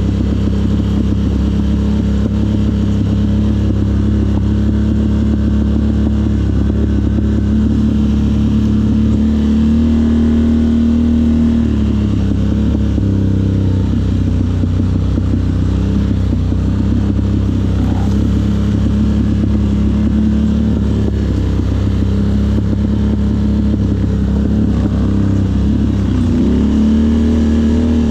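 ATV engine running steadily under way, its pitch rising with the throttle about ten seconds in, dropping back, and rising again near the end.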